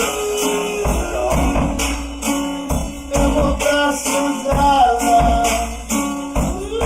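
A band song with a steady drum beat and pitched instruments.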